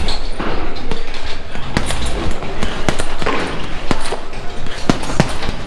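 Kickboxing strikes landing on a padded target: a series of sharp smacks at uneven intervals, about a couple a second.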